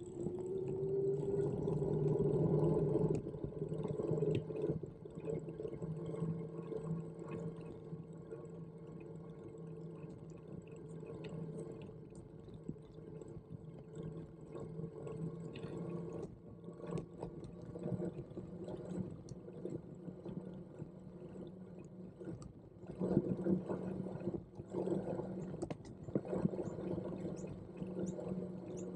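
Brompton Electric front hub motor whining steadily while riding, its pitch rising over the first few seconds as the bike picks up speed, with tyre and road noise underneath.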